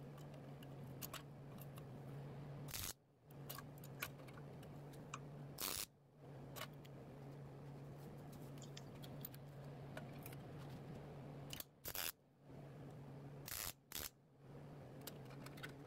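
Faint short bursts of a welder tacking a steel patch panel onto a car's quarter panel, a few seconds apart, over a low steady hum.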